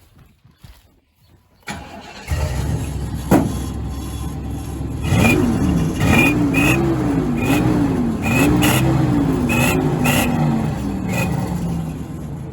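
Truck engine cranks and starts about two seconds in, then is revved up and down repeatedly. An exhaust-mounted turbo whistle gives short, high whistles on each rev. A sharp clack sounds about three seconds in.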